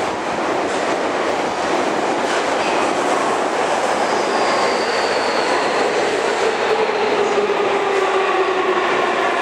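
Tobu 30000 series train approaching the platform through the subway tunnel: a loud, steady rumble of wheels on rail, with a whine that slowly falls in pitch over the second half as the train slows.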